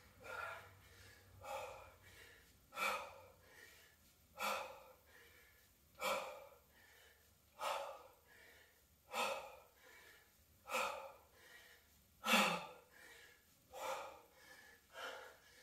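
A woman breathing hard from exertion during dumbbell swings: a sharp, gasping exhale about every second and a half, in time with each swing, with softer inhales between.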